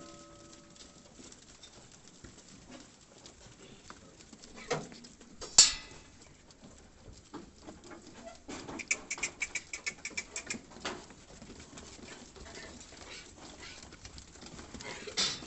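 A herd of goats milling and stepping about on a dirt yard, with light shuffling throughout. Two sudden loud knocks come about five seconds in, and a quick run of high chirps follows a few seconds later.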